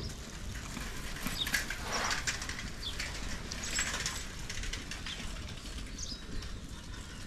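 Cloth rustling and scraping in a steel basin as rice flour is worked by hand, with louder rustles about two and four seconds in.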